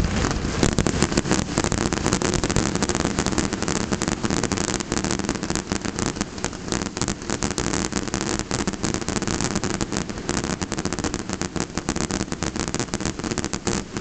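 Fireworks crackling: a dense, continuous stream of rapid small pops and crackles with no single large boom.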